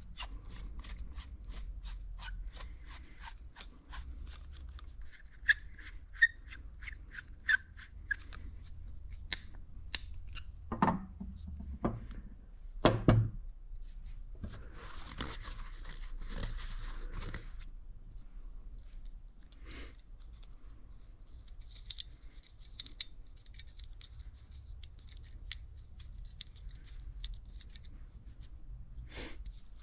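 Hand work on a small engine's parts: a run of quick light clicks, then a few sharper knocks, a hiss lasting about three seconds, and quiet scraping and rubbing.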